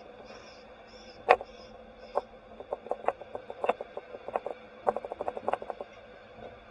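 Steady faint hum with irregular sharp clicks and knocks from a roof-mounted camera on a slowly moving vehicle. One loud knock comes about a second in, and a dense run of quicker clicks follows through the middle.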